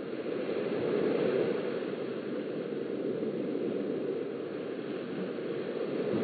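Steady rushing of small waves washing onto a sandy beach, picked up by a webcam microphone, swelling briefly about a second in.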